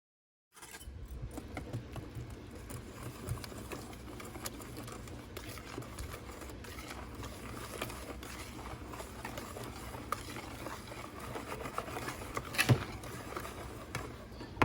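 Kitchen food preparation: a scatter of small clicks and light clatter of utensils and dishes over a low steady hum, with one sharper knock near the end.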